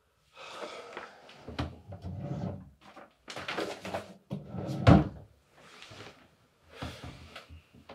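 Sheets of paper rustling and being shuffled as they are handled and sorted, in several short spells, with one loud dull thump about five seconds in.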